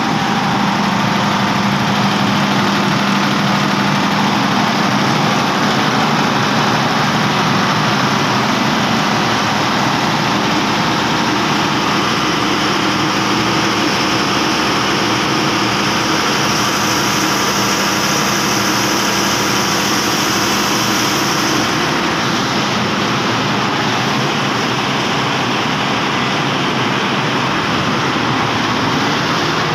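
Perkins 2500-series diesel engine of a 400 kVA generator set running steadily at constant speed. It makes a continuous mechanical din with a steady low hum. An airy hiss grows stronger for a few seconds about halfway through.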